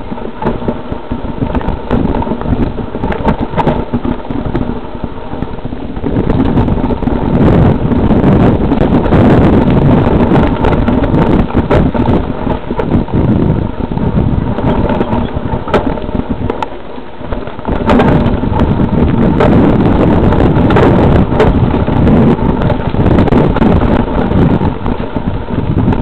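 Mountain bike riding fast down a stony, leaf-covered trail: tyres crunching over dry leaves and stones, the bike rattling and clattering with many sharp knocks, and wind buffeting the microphone. Briefly quieter about two-thirds of the way through.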